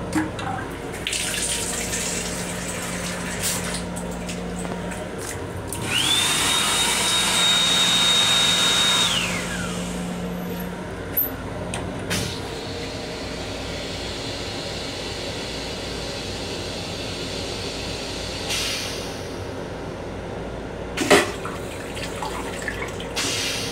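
Train restroom fixtures in use: the sensor-operated sink runs water with a low hum for a few seconds, then a motor whines up to a steady high pitch and winds down over about four seconds. About halfway through a button clicks and the toilet flushes with a steady hiss of rinse water, ending in a loud thump near the end.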